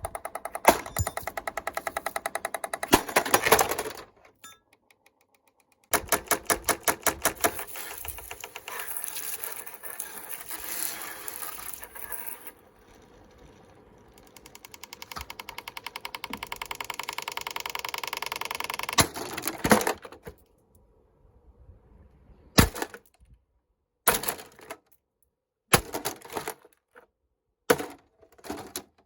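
Exhaust fan clattering rapidly and evenly in several runs, as though its spinning parts are striking something; the last run swells up. Separate short knocks follow near the end.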